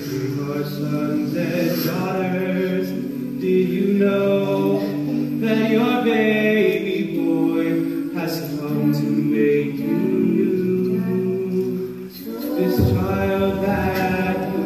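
A small mixed a cappella group of women's and men's voices singing in close harmony through microphones, with no instruments. The sound dips briefly about twelve seconds in, then the voices come back fuller, with a deeper low part.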